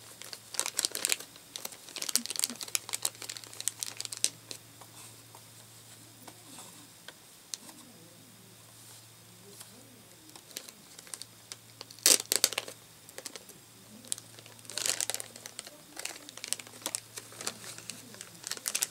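Plastic wrapping crinkling and rustling in irregular bursts as small parts are handled and unwrapped by hand, loudest about twelve seconds in, over a faint steady low hum.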